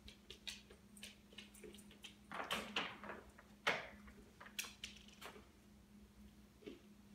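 A dog stepping into a wire crate: scattered clicks and rattles of paws on the crate floor and bedding, with a sharp metallic clatter about three and a half seconds in and a few more clicks after it. A faint steady hum sits underneath.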